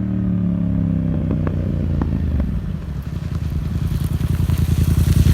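Yamaha FZ-07's parallel-twin engine through a Yoshimura exhaust, its revs falling away and then settling into a steady pulsing idle that grows louder, with a few light clicks along the way.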